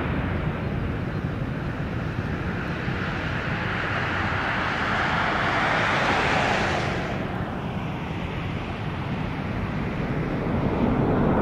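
Wide-body jet airliner's engines roaring past, the hiss building to a peak about halfway through and then falling in pitch as the aircraft goes by.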